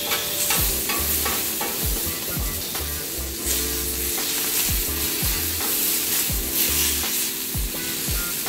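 Whole green onions sizzling in beef juices and olive oil on a steel flat-top griddle, with a metal spatula repeatedly scraping and pushing them across the plate.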